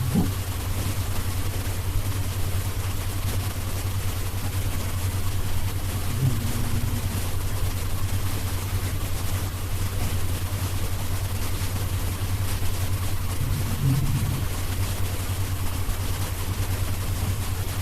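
Snoring: a short, low snore about every seven seconds over a steady low hum.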